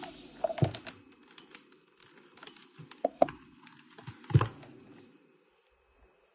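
Handling of small aluminium-bodied radiation detectors on a paper-covered table: light knocks and taps as one is set down and another picked up, with two quick taps about three seconds in and the loudest knock about four and a half seconds in.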